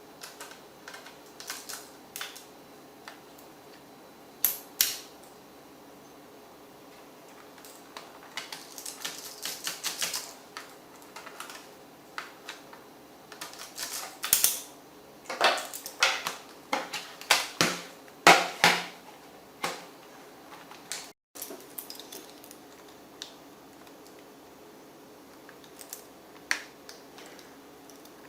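Irregular clicks, taps and light scrapes of plastic laptop parts and small hand tools being handled during disassembly, busiest in the middle stretch.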